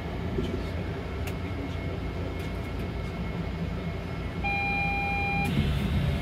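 Steady low hum and rumble of a Port Liner automated guideway train standing at a station platform. About four and a half seconds in, a single steady electronic beep lasting about a second.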